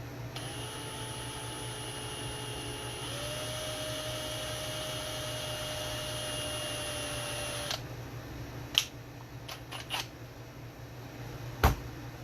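A small power tool's motor whirring for about seven seconds, stepping up in speed about three seconds in before stopping, as it twists pickup lead wires together. A few sharp clicks follow, the loudest near the end.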